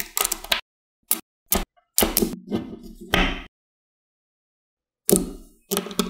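Small neodymium magnetic balls clicking and snapping together as they are handled and placed, in several short bursts of clicks with a pause of over a second in the second half.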